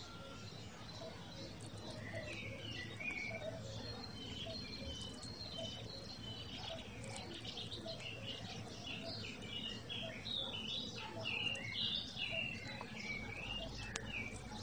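Small songbirds chirping and twittering in quick short notes, busier in the second half. Faint clicks of a red squirrel cracking sunflower seeds sit beneath them.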